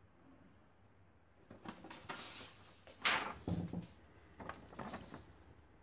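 A sheet of printer paper rustling as it is handled, in a few short irregular bursts starting about a second and a half in, the loudest about three seconds in.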